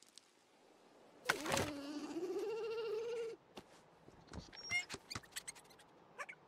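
An animated creature's long, wavering, bleat-like cry, starting suddenly about a second in and slowly rising in pitch for about two seconds, followed by a few short squeaks and clicks.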